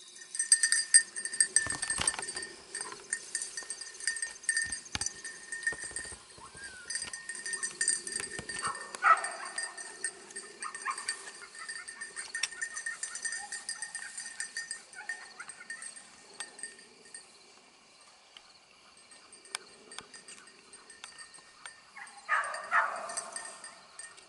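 Insects trilling steadily in a grassy field, with scattered footsteps and knocks through the grass, and two short bursts of animal cries, one about nine seconds in and one near the end.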